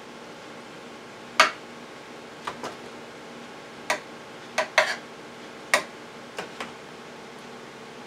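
Metal spoon clinking and scraping against a metal baking pan while spreading tomato sauce over ground beef: about ten sharp, irregular clicks.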